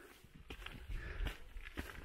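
Footsteps of a walker on a hiking track, about three steps with a thud and a light crunch each.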